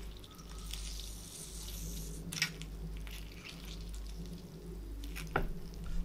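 A lemon half squeezed by hand over a peeled prawn: wet squishing and crackling with dripping juice, and two sharp clicks, about two and a half and five and a half seconds in, over a steady low hum.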